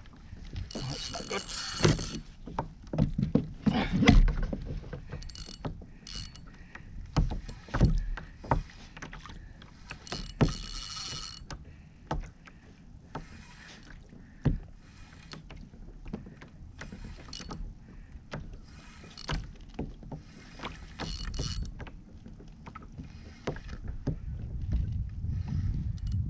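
Spinning reel worked against a hooked snapper on a bent rod, with scattered sharp knocks and clicks of rod and gear against the plastic kayak and two short whirring bursts about one and ten seconds in. A low rumble rises near the end.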